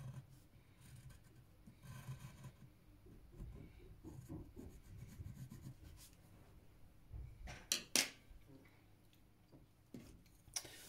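Pencil lead scratching on paper in short intermittent strokes as lines are drawn, with two short sharp clicks a little before the eight-second mark.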